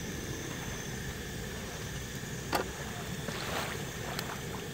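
Steady low rushing background, with a sharp clink of a metal fork against a steel serving tray about two and a half seconds in, followed by a brief scraping on the tray.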